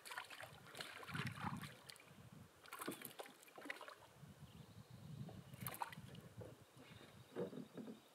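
Faint canoe paddle strokes through lake water, a splash and drip about every couple of seconds, with water lapping at the canoe hull.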